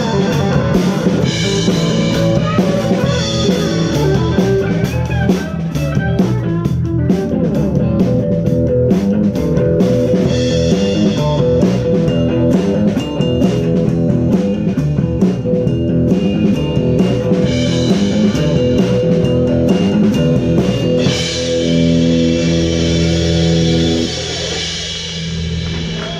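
Live rock band playing electric guitar, bass guitar and drum kit. Near the end the band settles on a sustained chord that thins out in the last couple of seconds.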